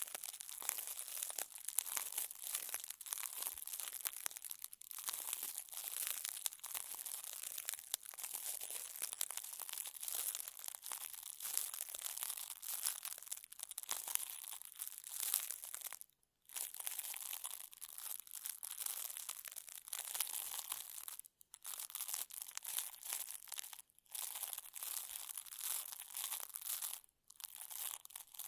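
Close-miked ASMR crinkling and scratching, a dense crackly rustle with short silent breaks about four times in the second half.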